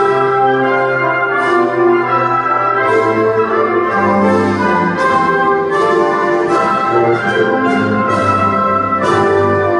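A national anthem played by an orchestra led by brass, in slow sustained chords.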